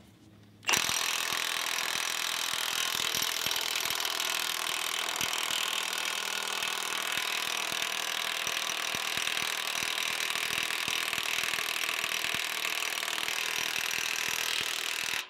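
Milwaukee M18 FUEL 2867-20 1-inch high-torque cordless impact wrench hammering on a rusted, seized nut, starting about a second in and running for about fourteen seconds before cutting off abruptly; the nut does not break loose.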